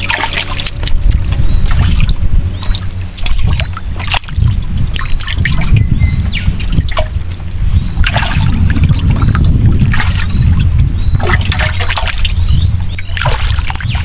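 Water sloshing and trickling under a heavy, uneven low rumble, with many short clicks and knocks throughout.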